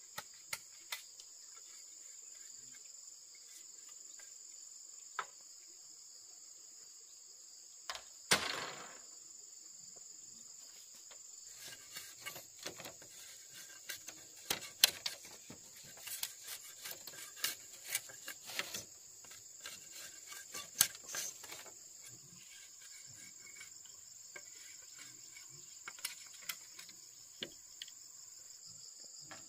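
Steady high-pitched drone of insects, with scattered sharp knocks and taps over it. The loudest knock comes about eight seconds in, and a busier run of clicks and taps follows from about twelve to twenty-two seconds.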